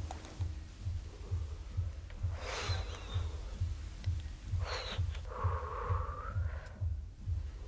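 A person drawing deeply on a joint and breathing the smoke out, two long breaths, over a low throbbing pulse about twice a second. A short held tone comes in near the end.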